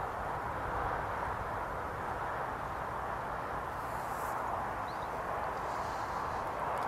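Steady rushing outdoor background noise, with one short high chirp about five seconds in.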